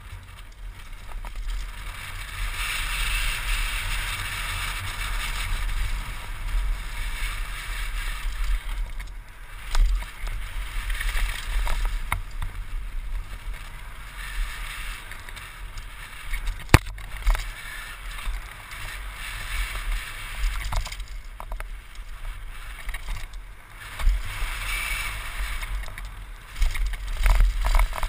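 Wind rumbling over a helmet-mounted GoPro's microphone as a downhill mountain bike runs fast down a dirt and gravel trail, with tyre crunch and rattles and knocks of the bike over bumps; one sharp knock stands out a little past halfway.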